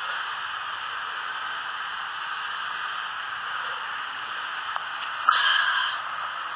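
Steady hiss of static noise. About five seconds in there is a brief louder burst lasting under a second.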